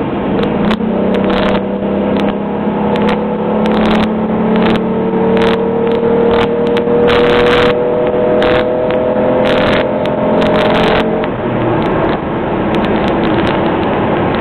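2003 Chevrolet Impala's V6 engine pulling hard at full throttle, heard inside the cabin, its note climbing slowly for about ten seconds. About eleven seconds in, the note drops away to a lower, steadier drone. Scattered sharp clicks and rattles sound throughout.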